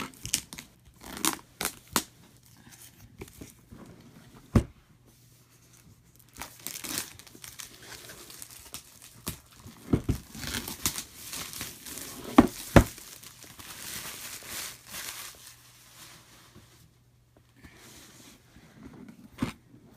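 Plastic wrapping being torn and crinkled off a boxed board-game expansion, with irregular sharp clicks and taps of cardboard and packaging being handled.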